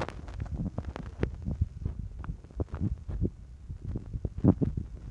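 Handling noise from a phone with its microphone covered: irregular soft low thumps and rubbing with a few sharper knocks.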